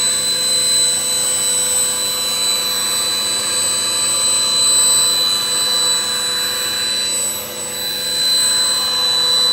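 Electric air pump running steadily, a constant whine over a rush of air, as it inflates a large inflatable camel pool float. The sound dips briefly about seven and a half seconds in.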